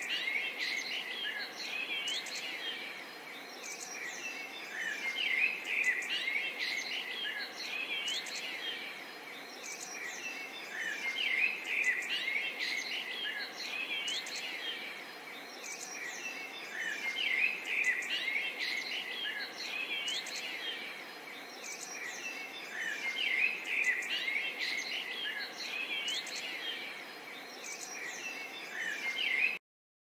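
A chorus of small birds chirping and singing, with many short overlapping calls, that stops abruptly near the end.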